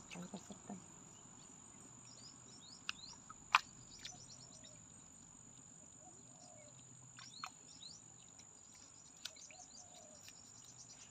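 Faint outdoor evening ambience: a steady high-pitched insect trill with scattered short bird chirps, and a sharp click about three and a half seconds in.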